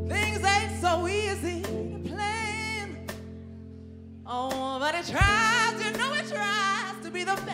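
Live band playing, with a woman singing two long wordless phrases with a wavering vibrato over held bass and keyboard notes and drum hits; there is a short gap between the phrases.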